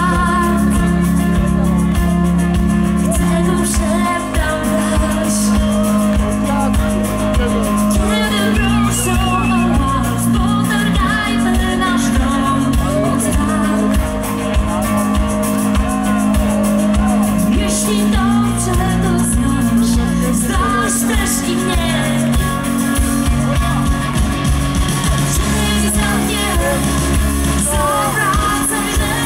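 Live rock band playing through a PA with a woman singing lead: electric guitar, bass guitar and drums, the bass holding long notes that change every few seconds.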